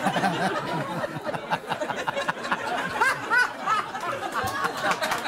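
Studio audience laughing together, many voices chuckling and laughing at once, loudest about three seconds in.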